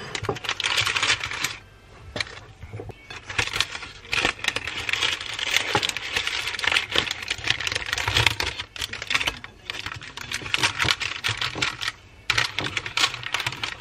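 Brown paper bakery wrapping crinkling and rustling as it is opened by hand, in three stretches with short lulls about two seconds in and about ten seconds in.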